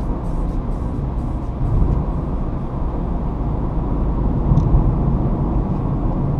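Car driving at highway speed, heard from inside the cabin: a steady low rumble of tyres on the road, wind and engine.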